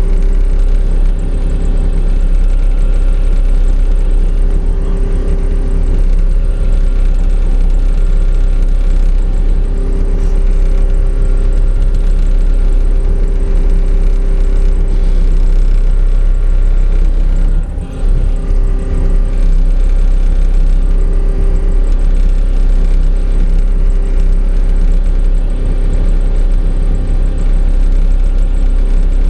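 Excavator's diesel engine running steadily under work, with a higher tone that swells and fades several times as it works.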